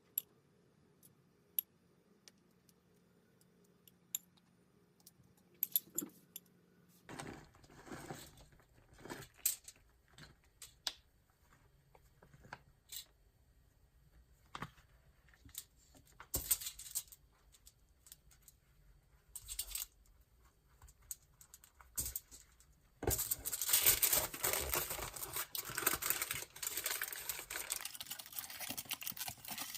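Kitchen handling sounds: a few faint clicks, then scattered knocks, clinks and rustling of utensils and packaging. About three quarters of the way through, a steady rush of running tap water starts.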